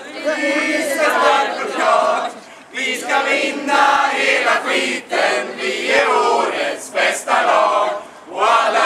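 A group of men and women singing and chanting a team cheer together in unison, in phrases of a few seconds with short breaks between.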